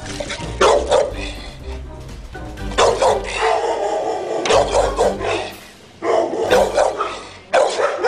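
Pit bull barking repeatedly, in several short loud bursts, over background music.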